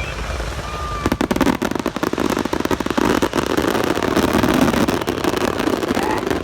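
Consumer fireworks going off: a fast run of crackling pops that starts about a second in and stays dense to the end.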